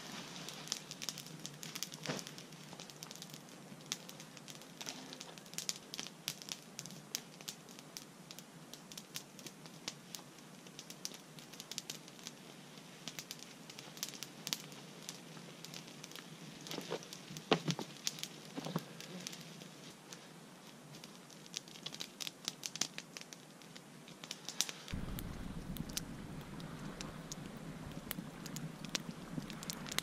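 Small wood campfire crackling, with many scattered sharp pops; near the end a low steady rush comes in beneath the crackle.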